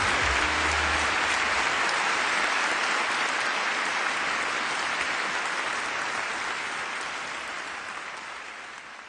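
Large audience applauding with steady, dense clapping that gradually fades out over the last few seconds.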